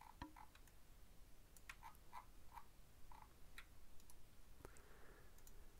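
Faint, irregular clicking of computer controls: about seven short clicks over quiet room tone.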